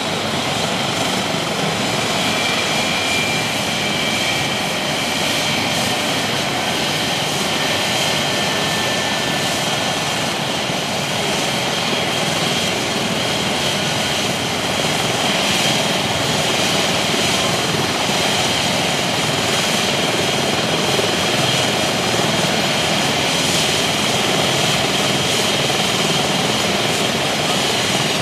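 Airbus EC135 rescue helicopter's twin turbine engines running on the ground after landing, with the rotor noise and a steady high turbine whine.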